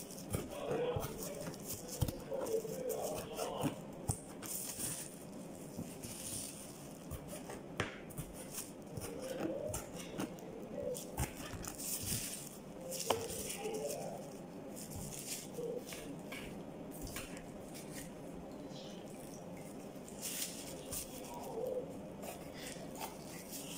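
Kitchen knife chopping on a plastic cutting board, in irregular knocks and taps.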